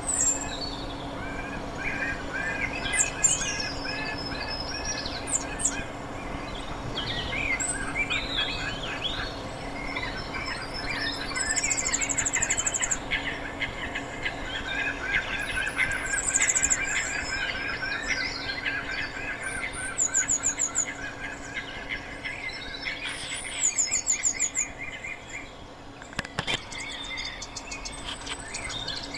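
A chorus of several wetland birds chirping and calling, with a busy run of short calls and several bursts of very high, rapid trills. A faint, steady low hum sits underneath.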